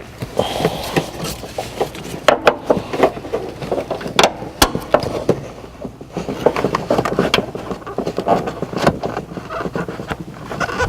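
Hands working at the seat belt's bottom floor anchor: carpet and plastic trim rustling, with scattered clicks and knocks as the anchor bolt is started by hand.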